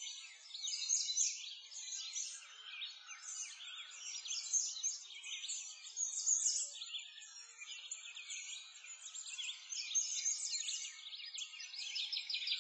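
Many small birds chirping and singing at once, a dense, continuous chorus of quick, high-pitched calls overlapping throughout.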